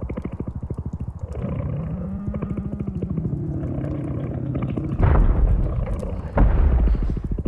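A giant cat creature's deep, rattling growl, a fast pulsing rumble with a low droning tone that rises and falls under it. Two heavy low booms follow, about five and six and a half seconds in.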